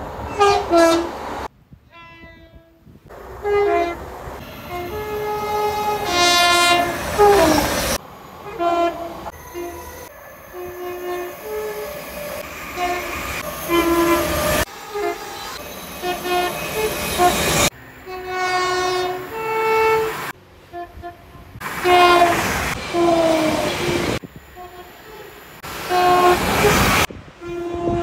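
A rapid run of British passenger train horns, one after another with abrupt cuts: mostly two-note blasts that step between a high and a low note, some short single toots, with the noise of passing trains between them.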